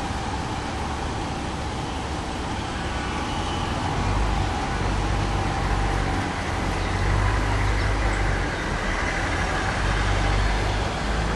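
Steady outdoor background noise, with a low rumble that grows louder about four seconds in.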